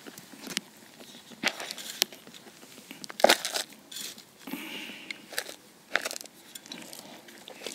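Irregular crunches and scrapes of gritty garden soil, about a dozen scattered through, the loudest about three seconds in.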